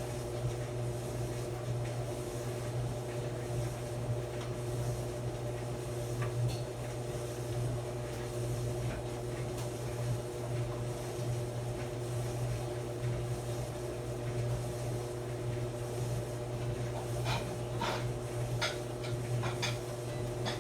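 Maytag clothes dryer running with a steady low hum and a few steady higher tones, with several light clicks near the end.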